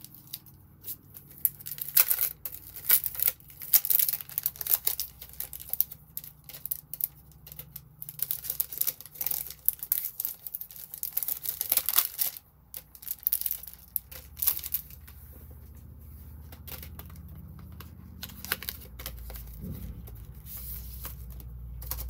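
Plastic packaging crinkling and tearing as it is handled, crackling on and off for the first fifteen seconds or so. Later a motorcycle engine runs in the background, a low rumble growing louder near the end.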